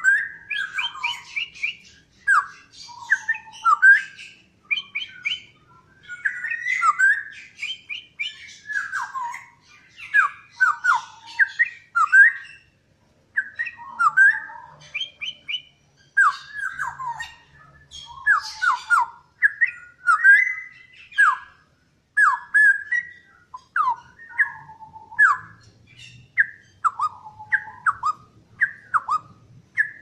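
Straw-headed bulbul (cucak rowo) singing: loud, rich whistled phrases of quick notes sweeping down and up, one after another with only brief pauses.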